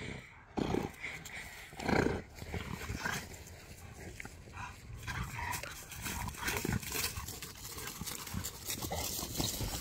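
Cane Corso dogs play-fighting: two loud dog vocal bursts about one and two seconds in, then lighter scuffling.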